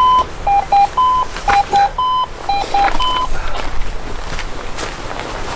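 Fire brigade alert tone beeping in a repeating pattern of two short lower beeps then one longer higher beep, about once a second; it stops a little over three seconds in, leaving scattered knocks and rustles.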